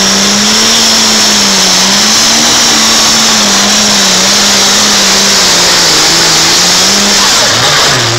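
Pulling tractor's engine running flat out under load as it drags the weight sled, its pitch wavering slightly over a loud high hiss. Near the end the engine pitch drops as it comes off the throttle.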